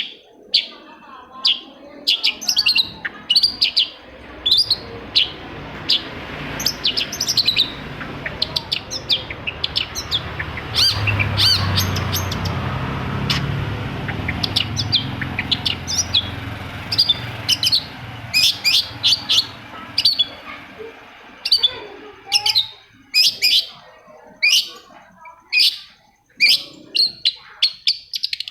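Long-tailed shrike (cendet) singing: a fast run of short, sharp, scratchy notes repeated throughout. A low background rumble rises in the middle and fades out again.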